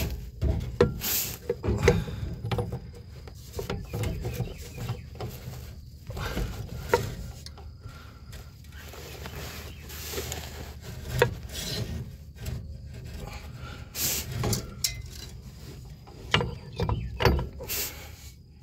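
Driveshaft slip yoke being wiggled and pushed by hand in a Chrysler TorqueFlite automatic transmission's tailshaft housing: irregular metal knocks and rubbing as the yoke shifts about in a worn, loose tailshaft bushing.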